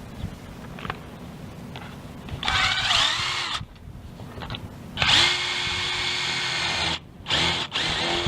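Power drill running in bursts with a whine. A short burst about two and a half seconds in winds down, a steadier run of about two seconds follows from five seconds in, and two shorter bursts come near the end.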